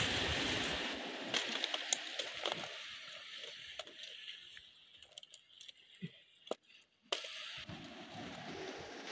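Lumps of charcoal clicking and knocking against each other and the split kindling as they are set on a smoking wood fire, over a rushing hiss that fades after the first few seconds and returns near the end.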